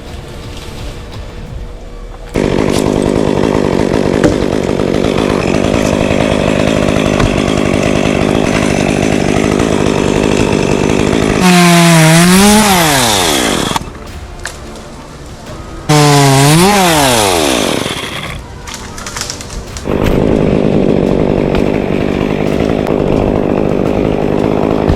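Chainsaw running at a steady speed. It is twice opened up hard, its pitch rising then dying away as the throttle is released.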